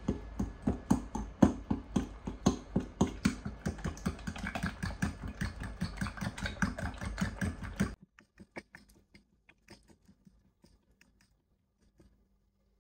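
A fast, even series of sharp knocks, about five a second, over a low rumble, stopping suddenly about eight seconds in; faint scattered clicks follow.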